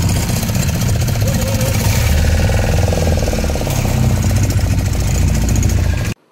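Fishing boat's engine running steadily with a fast, even chugging. It stops abruptly near the end.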